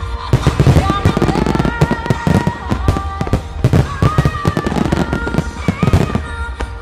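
A dense barrage of aerial firework shells bursting, many reports following one another closely. A song with a sung melody plays alongside.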